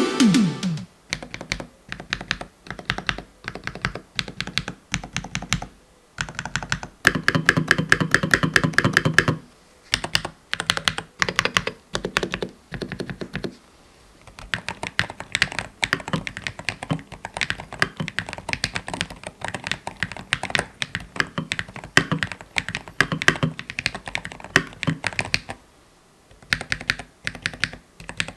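Keyboard fitted with Keychron Ultra Fast Banana tactile Hall effect switches being typed on: separate keystrokes at first, then a burst of fast typing, then steady irregular typing.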